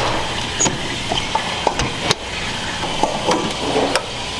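Kitchen clatter: several short knocks and clinks of metal pots and utensils being handled, over a steady background din.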